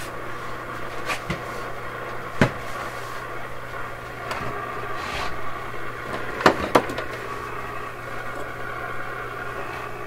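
Sylvania five-tube AM clock radio's speaker giving static and hiss over a steady low hum, with sharp crackles about a second in, near two and a half seconds, and twice close together around six and a half seconds; the set has just warmed up and come on.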